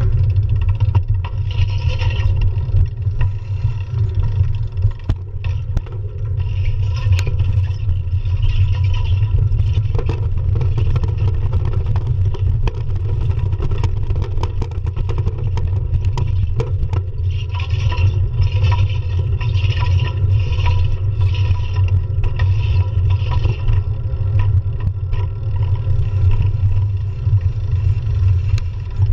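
Bicycle riding over city pavement, heard through a handlebar-mounted action camera: a steady low rumble of road vibration and wind, with scrapes and rattles throughout.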